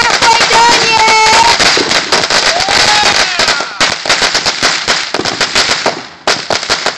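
A long string of 4,000 firecrackers going off in fast, continuous popping, with a short lull about six seconds in.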